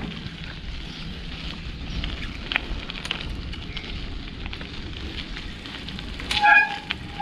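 Wind buffeting the microphone over road noise while riding a bicycle, with scattered small clicks and crackles. A horn toots briefly near the end.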